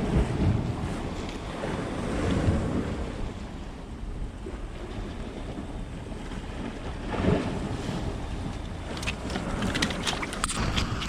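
Wind buffeting the microphone over the wash of sea waves, swelling and easing in gusts, with a few light clicks and knocks near the end.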